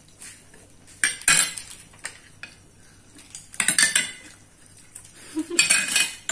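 Spoons and fingers clattering against bowls and plates while crisp golgappa shells are cracked open and filled, in three short bursts about a second, three and a half seconds and five and a half seconds in.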